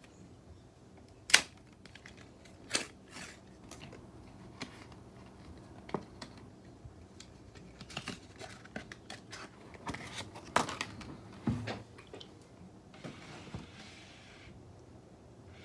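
Scattered sharp clicks and taps of small hard objects being handled, with a brief rustle, like packaging, near the end.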